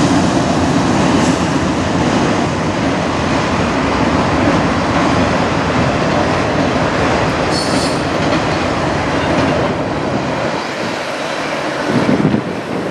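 Freight train of autorack cars rolling past close by: a steady rumble and rattle of wheels on rail, with a brief high wheel squeal about 8 seconds in. The low rumble thins out over the last couple of seconds as the rear cars pull away.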